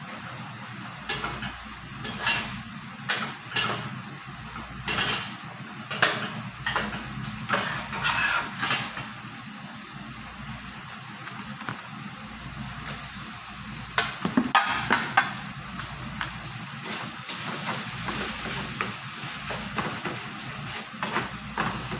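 A cooking utensil clinking and scraping against a pan and pot in a run of sharp knocks. The knocks are densest in the first nine seconds and come again in a cluster about fourteen seconds in, over a steady hiss and low hum.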